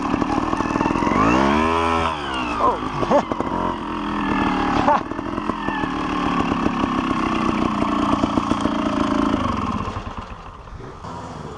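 Dirt bike engine heard from the riding bike, revving up and back down about a second or two in, then running steadily under the rider and easing off near the end.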